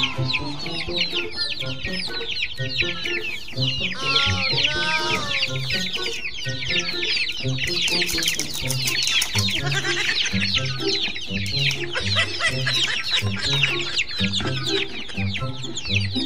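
A flock of young chickens peeping continuously, a dense stream of short, high, falling chirps from many birds at once. Background music with a regular pattern of low notes plays underneath.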